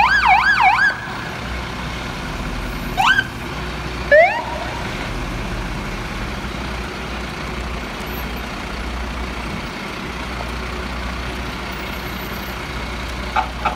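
Fire truck siren sounded in short bursts: a quick warbling yelp at the start, then two brief rising whoops about three and four seconds in, over the steady low running of the diesel fire trucks' engines. A run of short pulsed horn toots begins near the end.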